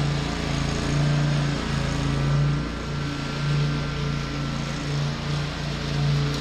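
An engine running steadily with a low hum that dips briefly about once a second.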